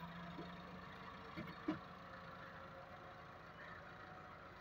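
Massey Ferguson 375 tractor's diesel engine running steadily under load while pulling a disc plough through sandy soil. A couple of short knocks come about a second and a half in.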